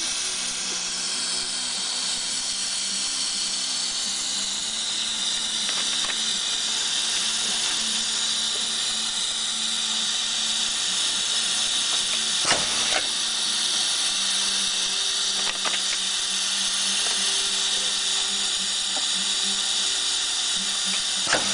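Burrito label-wrap machine running, a steady high whine and hiss from its drive and label feed, with a few sharp clacks from its mechanism, the loudest about halfway through and again near the end.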